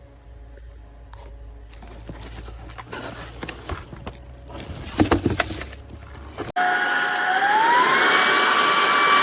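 Clicks and knocks of handling. About two-thirds of the way in, a cordless stick vacuum's motor switches on abruptly and spins up, its whine rising in pitch and then holding steady.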